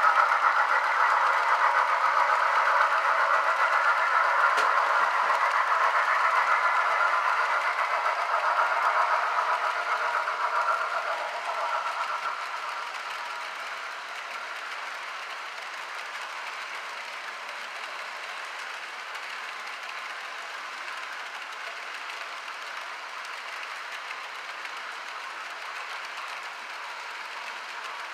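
HO scale model freight train running past on the track, its cars rolling and clattering steadily. The sound is louder at first and dies down about twelve seconds in to a quieter steady run.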